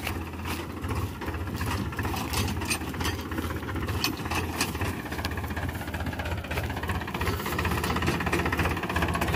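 Powertrac Euro 50 tractor's diesel engine running steadily as the tractor drives slowly, with a clattering knock typical of a diesel.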